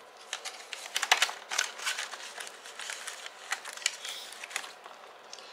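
Paper banknotes and a cash envelope being handled: a run of crisp rustles and light clicks, busiest in the first couple of seconds and dying away toward the end.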